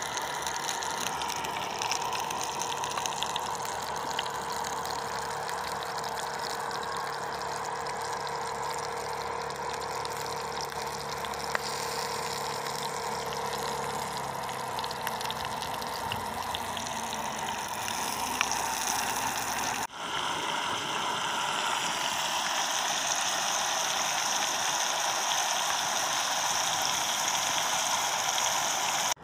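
Steady hiss of a canister gas camping stove burning under a frying pan, with sausages frying. After a break about two-thirds of the way through, a brighter sizzle of sausages and tomatoes frying in the pan.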